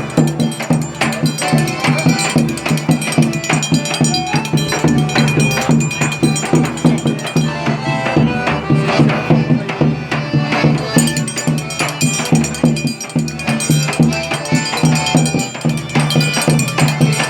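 Lively music with fast, dense percussion over a steady bass note.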